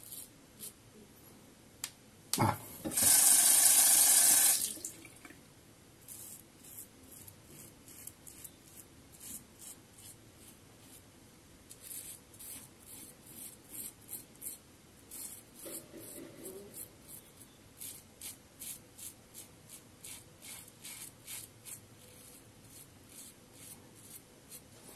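A tap runs for about two seconds near the start. Then a Fatip slant safety razor scrapes through a dense five-day beard in a long series of short strokes, each a brief rasp.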